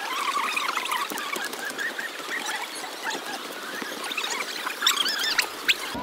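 Small birds chirping and twittering: many short high chirps, with scattered light clicks.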